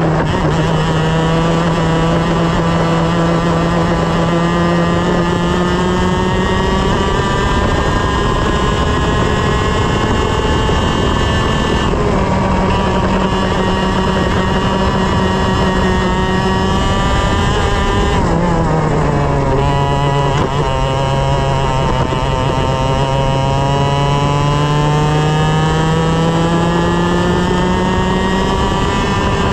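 125 cc TaG two-stroke kart engine running at race pace, heard close up. Its pitch climbs slowly and steadily as the kart accelerates, and drops steeply about 18 seconds in as the driver lifts off for a corner before climbing again.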